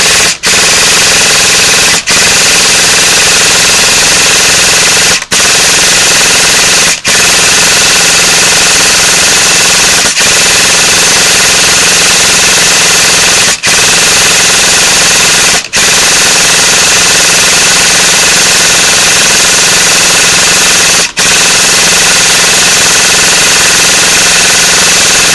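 Echo1 Troy airsoft electric gun (AEG) firing full-auto in long, loud bursts, its gearbox cycling with a freshly fitted modified cylinder set, piston and air seal nozzle. Each burst lasts from about two to five seconds, with brief breaks between them about eight times.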